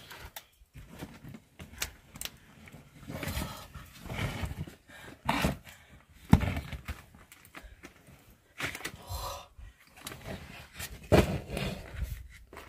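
A woman's frightened panting and gasps in short irregular bursts, with a sharp loud gasp about six seconds in and another strong burst near the end.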